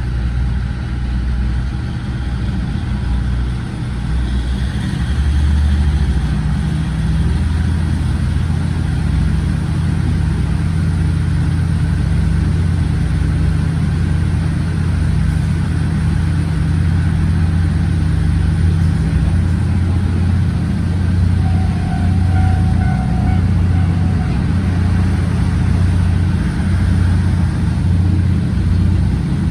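KiHa 47 railcar's original DMF15HSA horizontal six-cylinder diesel engine, heard from inside the car. It throttles up about four seconds in as the train pulls away from a station, then runs steadily under power.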